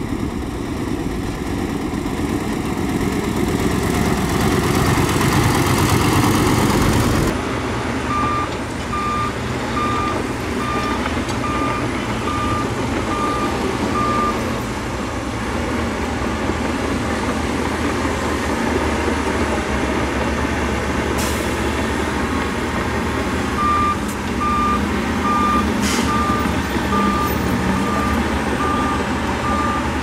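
Diesel dump truck driving past with its engine running loud. After a sudden cut, truck diesels run steadily while a reversing beeper sounds a regular series of beeps, about one and a half a second. The beeping stops for several seconds mid-way and starts again near the end, with a couple of sharp knocks in between.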